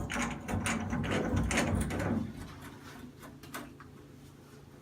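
Channel-lock pliers working metal on a shower valve as it is tightened: irregular clicks and scraping, busiest for the first two seconds, then a few scattered clicks.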